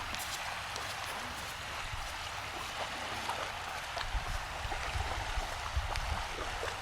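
Steady rushing of flowing river water, with a low rumble underneath and a few faint ticks.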